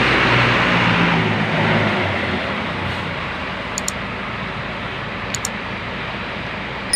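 A bus driving past on the road: engine and tyre noise, loudest at first and fading over the next few seconds as it moves away. Two faint pairs of clicks come in the middle.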